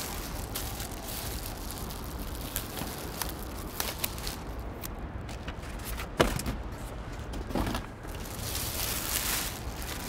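Handling noises from a tabletop Dobsonian telescope and its packaging being set up by hand: scattered light clicks and knocks, a sharper knock about six seconds in, and a rustle near the end.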